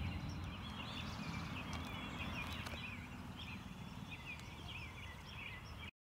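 Outdoor ambience of birds chirping, many short high calls over a low rumble, which cuts off suddenly near the end.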